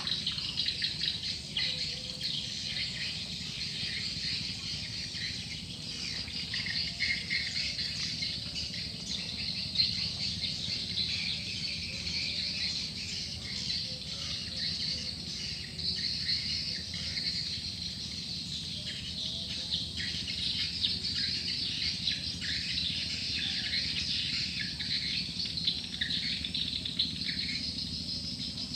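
Dense, continuous chorus of rapid high twittering from swiftlets, mixed with a swiftlet-call lure recording.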